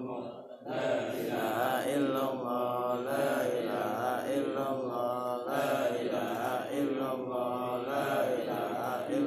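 Male chanting of Arabic devotional phrases (dhikr) in a melodic, repeating line, with a brief breath pause just after the start.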